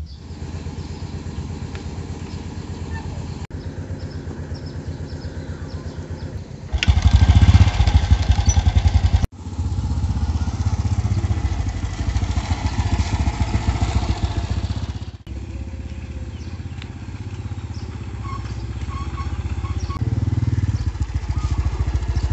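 Small step-through motorcycle engine running as it is ridden, heard across several cuts; it is louder for about two and a half seconds starting about seven seconds in.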